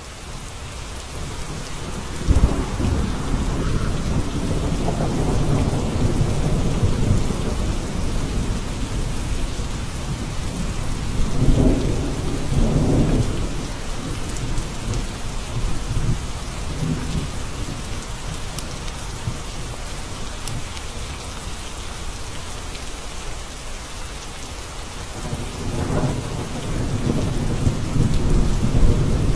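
Steady rain with rumbles of thunder: a long roll of thunder starts about two seconds in, another comes around eleven to thirteen seconds, and a third near the end. The rain swells up over the first few seconds.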